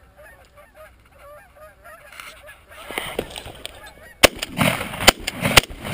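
A flock of geese honking, the calls growing louder and denser as the birds come in close, then three shotgun shots in quick succession about four seconds in.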